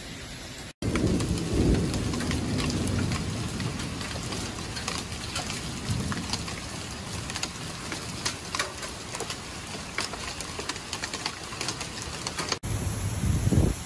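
Heavy rain and small hailstones pelting a wooden deck: a steady downpour hiss dotted with many sharp ticks of hail strikes. A low rumble of thunder comes about a second in.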